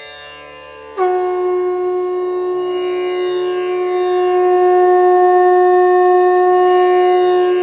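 A conch shell blown in one long, steady note that starts sharply about a second in and grows slightly louder, over quiet instrumental background music.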